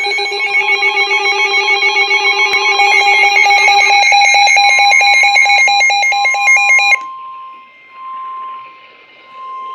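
Several Midland weather radios sounding their alert alarms together for a severe thunderstorm warning: a loud, fast-pulsing beep in several pitches that stops abruptly about seven seconds in. From about halfway through, a single steady tone plays on through a radio speaker, the NOAA Weather Radio warning alarm tone that comes before the spoken message.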